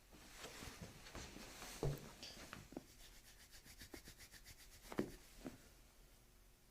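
Faint rubbing and rustling handling noise, with two soft knocks about two seconds and five seconds in.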